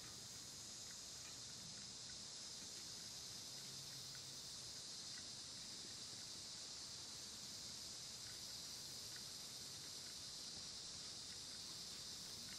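A steady chorus of summer insects, an even high-pitched buzzing, with a few faint scattered ticks.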